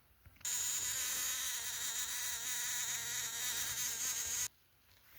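Steady buzzing hum of a small electric motor, switching on about half a second in and cutting off suddenly about four seconds later.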